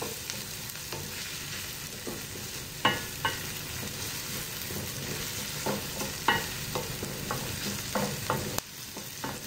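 Chopped onion and garlic sizzling in oil in a frying pan, with a steady hiss, while a wooden spatula stirs them, knocking and scraping against the pan at irregular moments.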